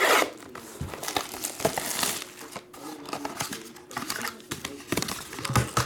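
A blade slicing the tape seal on a small cardboard box, loudest as a sharp scrape right at the start, followed by scratchy rustling as the box flaps are pulled open and the packaging inside is handled.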